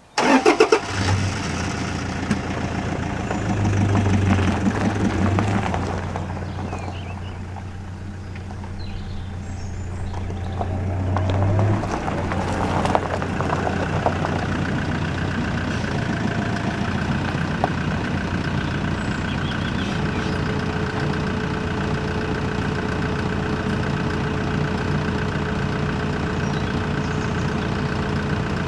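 A motor vehicle's engine starts suddenly and then runs steadily, changing tone about twelve seconds in and again later.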